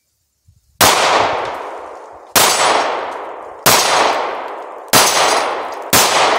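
Five handgun shots fired at a slow, fairly even pace, roughly a second to a second and a half apart. Each is a sharp crack that trails off in a long fading tail.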